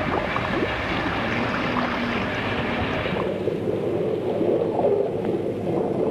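Sea water churning and splashing at the surface. About three seconds in it gives way to a duller, muffled underwater sound.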